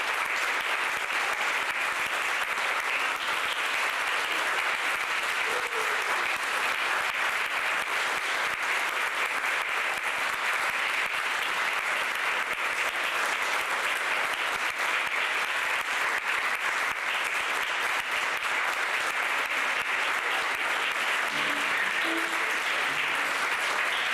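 Audience applauding steadily in a large hall, sustained clapping without a break.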